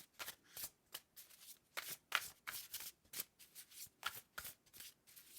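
A deck of oracle cards being shuffled by hand: a run of short, crisp card snaps, several each second.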